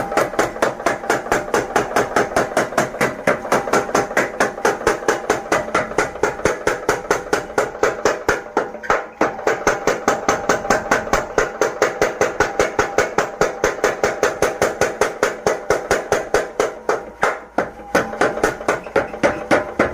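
Blacksmith's power hammer pounding in a fast, steady rhythm of about five blows a second, each blow ringing metallically. The rhythm breaks briefly about halfway and again near the end.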